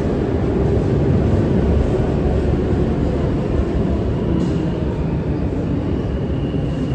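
Steady low rumble of an R160A New York subway train standing at a station platform with its doors open. A faint high whine joins about four seconds in.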